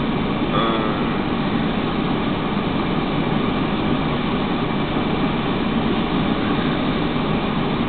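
Steady, loud rumbling noise with no clear rhythm or beat. A short wavering pitched sound comes about half a second in, and a click near the end.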